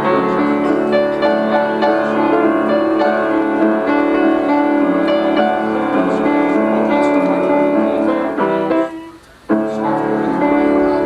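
Piano playing chords continuously. The music drops out suddenly for about half a second near nine seconds in, then picks up again.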